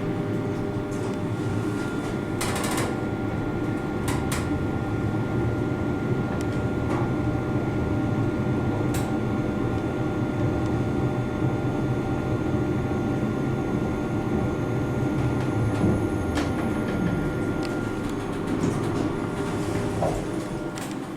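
Kone MonoSpace machine-room-less lift car in travel: a steady running rumble with a thin high whine that stops about sixteen seconds in, and a few clicks and knocks early on.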